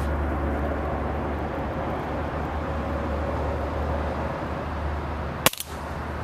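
A single sharp air rifle shot about five and a half seconds in, over a steady low rumble.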